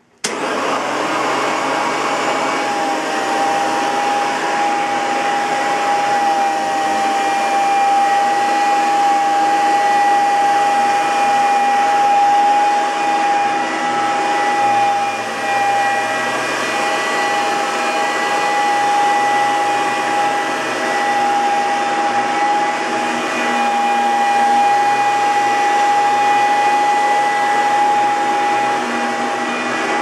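1997 Hoover Dimension Supreme bagged upright vacuum cleaner switched on at the start and running steadily on carpet, a strong steady whine over the motor's rush of air. The whine comes from a dry front motor bearing, which makes it sound kind of like a tornado siren.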